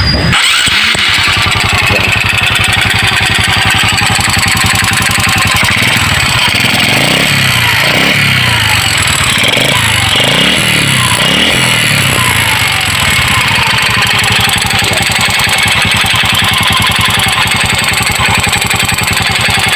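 Honda XRM 125 motorcycle's single-cylinder four-stroke engine starting about half a second in, then running with several throttle blips in the middle. It carries the ticking knock the bike came in for, which the mechanic puts down to an aftermarket replacement piston kit.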